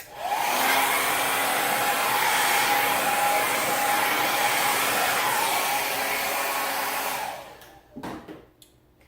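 Hand-held hair dryer running, switched on at the start with its motor whine rising as it spins up, then a steady rush of air and whine until it winds down and stops about seven seconds in.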